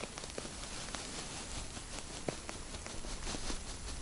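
Light wind rumbling on the microphone, with scattered faint clicks and crackles over it.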